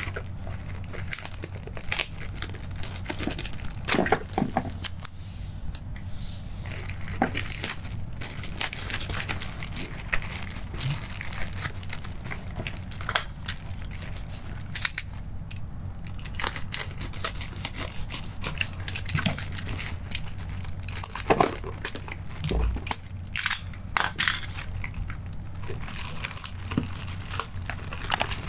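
Plastic courier mailer crinkling and crackling as gloved hands tear and pull it open, in irregular bursts of rustling with sharper crackles here and there.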